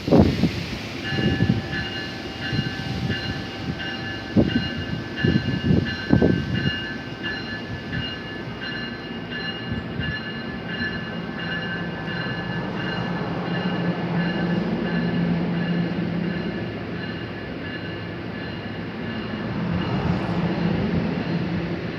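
Electric passenger train moving through the station, with several steady high-pitched tones and a low hum that swells in the second half. Gusts of wind buffet the microphone during the first several seconds.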